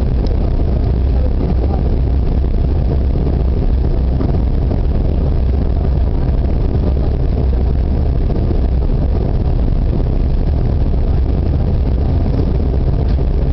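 Steady low roar in the cabin of a Canadair CRJ-200 regional jet on approach, from its rear-mounted GE CF34 turbofans and the rush of air along the fuselage. It runs unchanged, with no distinct events.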